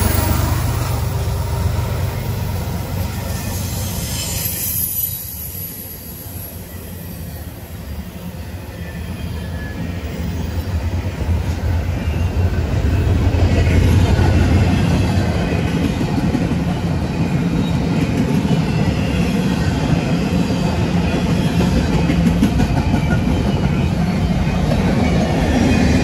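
Double-stack intermodal well cars of a freight train rolling past, a steady rumble and clatter of wheels on the rails. It dips a few seconds in, then builds again as more cars go by.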